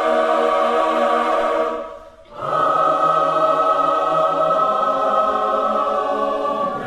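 Choir singing slow held chords: a chord on "forever" fades out about two seconds in, and after a brief gap the choir sings a long sustained "Amen".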